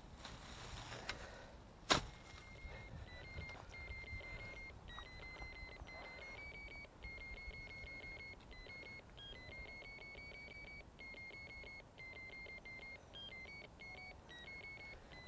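Ferret finder receiver beeping in a rapid train of short tones, the pitch stepping up and down a little, after a sharp knock about two seconds in. The beeping tracks a working ferret's locator collar underground, the mark shifting back and forth as the ferret moves while tackling a rabbit.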